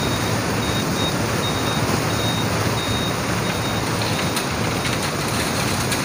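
Diesel engines of a concrete mixer truck and a Kobelco mini excavator running steadily, with a high-pitched warning beeper sounding about every two-thirds of a second.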